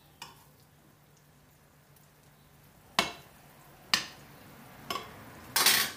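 Meatballs laid back one at a time into hot oil in a frying pan, each setting off a short spit of sizzling: three quick ones about a second apart from around three seconds in, then a louder, longer burst of sizzling near the end.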